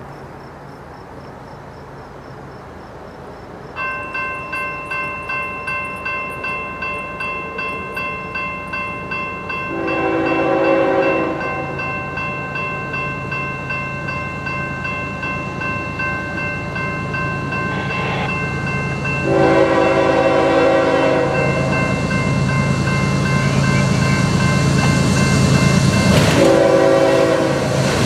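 A railroad crossing bell starts about four seconds in and rings steadily about twice a second. An approaching diesel locomotive sounds its horn: a long blast about ten seconds in, a short and then a long blast around twenty seconds, and another starting near the end. The train's rumble grows louder as it nears.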